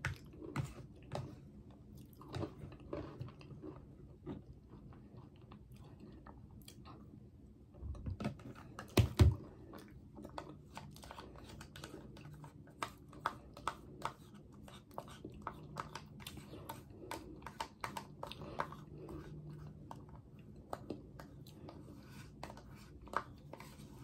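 Close-up eating sounds: chewing a soft dessert with cookie crumbles, with a plastic spoon clicking and scraping against a plastic cup. A couple of louder knocks come about eight and nine seconds in.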